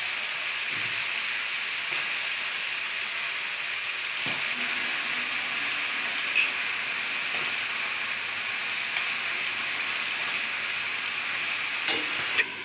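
Steady sizzling of food frying in hot oil in steel pans on a gas stove, with a few light metal clinks of a spatula, two of them near the end.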